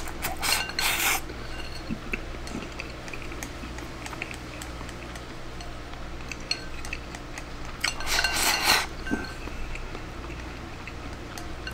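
Wooden chopsticks clicking and scraping against a ceramic donburi bowl as rice and egg are shoveled from the bowl into the mouth. There are many small clicks throughout and two louder scraping bursts, one at the start and one about eight seconds in.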